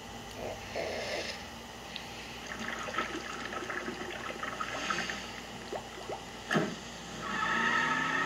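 Cartoon liquid sound effects, sloshing and gurgling with small pops, a sharp knock about six and a half seconds in, and a drawn-out pitched sound near the end. They come from the soundtrack of the animated drink-cup logo and are heard through a TV speaker.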